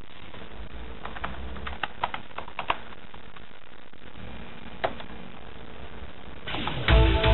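Computer keyboard keystrokes: a quick run of key clicks, then a single keystroke about five seconds in. Music comes in near the end, louder than the typing.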